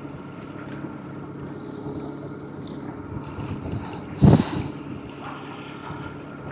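Boat motor running steadily at trolling speed, with a single loud thump about four seconds in.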